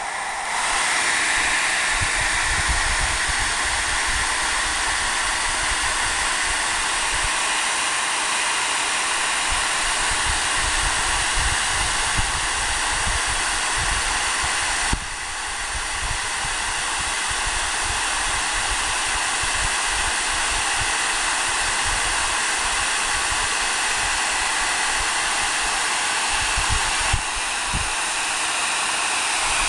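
Hand-held hair dryer running steadily, blowing hot air into a frying pan to cook an egg, with a low flickering rumble of air. The level dips suddenly about halfway through, then it runs on.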